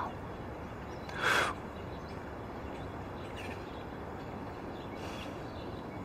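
Steady background hiss of outdoor ambience, with one short breathy burst about a second in and a couple of faint bird chirps later.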